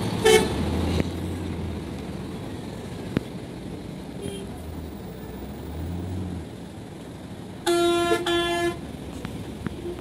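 Bus horns honking over the low running of coach diesel engines: a short toot just after the start, a faint one about four seconds in, and a loud double blast about eight seconds in.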